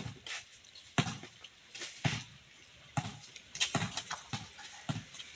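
Basketball bouncing on a concrete court as it is dribbled: single sharp thuds about once a second, coming quicker near the end.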